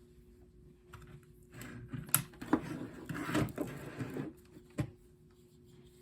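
Hands handling the carbon monoxide alarm and its parts: a couple of seconds of rustling and scraping with several sharp clicks, the loudest about two seconds in, and a last click near five seconds.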